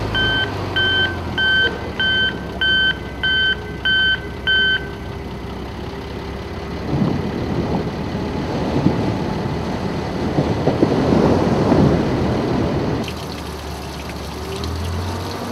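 Heavy equipment's reversing alarm beeping steadily about one and a half times a second over the machine's engine, stopping about five seconds in. A rough rushing noise then swells for several seconds before dropping away near the end.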